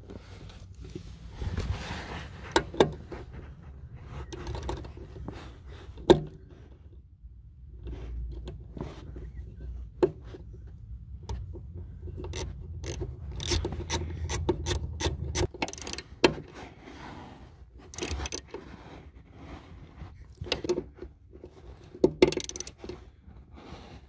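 Hand ratchet clicking in irregular runs as bolts are run down and tightened, mixed with scraping and rubbing against the floor carpet and a low handling rumble.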